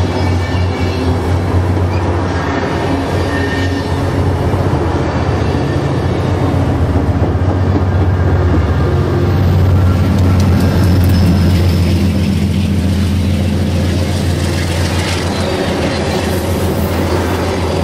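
Bilevel passenger cars of an Amtrak Pacific Surfliner train rolling past at speed: loud, steady noise of steel wheels running on the rails, with a deep rumble underneath.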